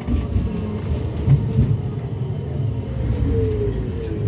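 Tram running, heard from inside the car: a steady low rumble, with a thin whine that falls in pitch about three seconds in.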